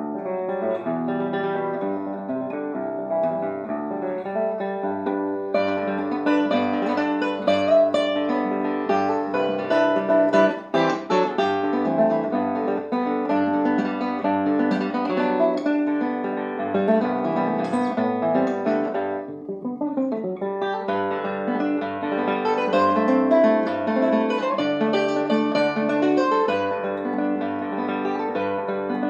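Solo classical guitar played fingerstyle: a lively run of plucked nylon-string notes over a steady bass line, with a brief softer moment about two-thirds of the way through.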